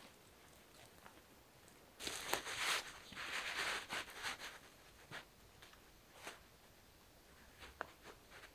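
Rustling and crunching of dry leaf litter and tarp fabric as a tarp corner is pegged down by hand with a tent stake, loudest for about two seconds starting two seconds in, then a few faint clicks and scrapes.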